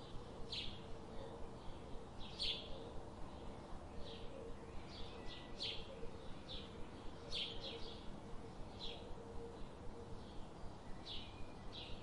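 Birds chirping in short, high calls at irregular intervals, over a faint, steady background with an even pulse about three times a second underneath.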